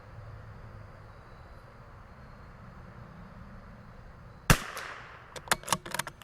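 A single shot from a CZ 457 bolt-action .22LR rifle about four and a half seconds in, followed within a second by a quick series of metallic clicks as the bolt is worked to chamber the next round.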